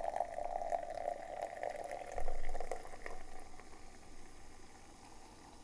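Cola being poured into a glass, fizzing and crackling, the fizz dying away after about three seconds. There is a soft low bump about two seconds in.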